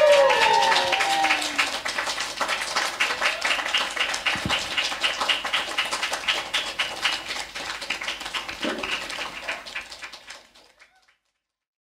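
Audience clapping and cheering, with a few shouts in the first second or so, the applause then fading away near the end.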